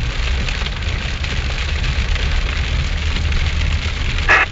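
Car cabin noise while driving: a steady low rumble from the engine and road under an even hiss. A short pitched sound about four seconds in breaks through, like a brief voice or a radio squawk.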